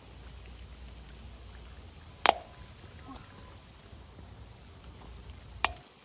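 Two sharp pops, the first a little over two seconds in and the second about three and a half seconds later: corn kernels bursting in hot oil in a cast-iron kazan. Each pop leaves a brief ring, over a steady low rumble.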